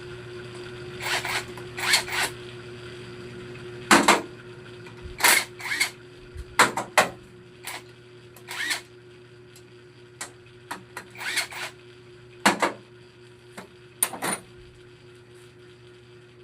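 Irregular metal clinks and clanks of hand tools and small engine parts being handled during a scooter engine teardown, some in quick pairs, over a steady hum.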